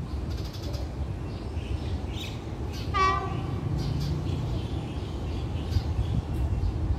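A diesel locomotive's horn gives one short blast about three seconds in as the train approaches, over a steady low rumble.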